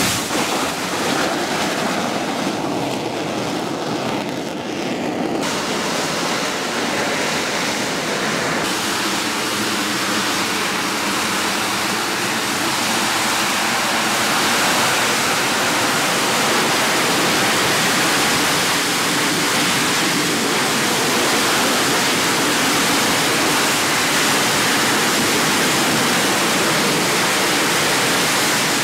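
AV-8B Harrier's Rolls-Royce Pegasus turbofan running at high thrust for a vertical takeoff and hover: loud, steady jet noise, with a faint whine in it from about nine seconds in.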